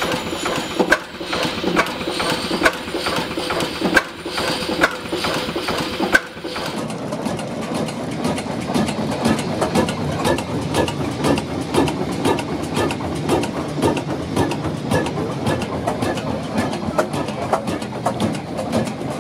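Deutz MIH 328 single-cylinder four-stroke stationary diesel engine running slowly, with evenly spaced firing knocks over a steady hum. About six seconds in, the sound switches to a closer, denser mechanical clatter of the running engine.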